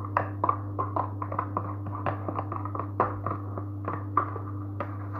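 A spoon clicking and scraping in a plastic tub while stirring breadcrumbs into butter: short irregular taps several times a second, over a steady low hum.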